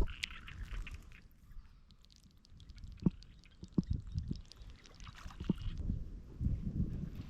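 Shallow water sloshing and splashing in short, irregular bursts, with several low, sharp knocks in the second half.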